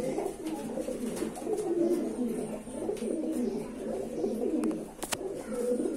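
Domestic pigeons cooing, a low warbling that runs on with hardly a pause, with a sharp click about five seconds in.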